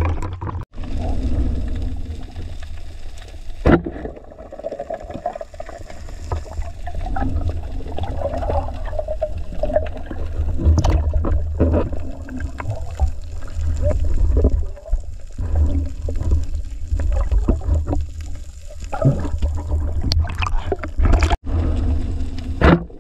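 Underwater sound picked up by a diving camera: a heavy low rumble of moving water with wavering gurgles, and a few sharp knocks.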